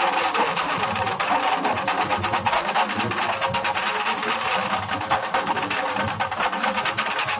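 Nashik dhol band playing: large barrel dhol drums and small tasha drums beaten with sticks in a fast, driving rhythm.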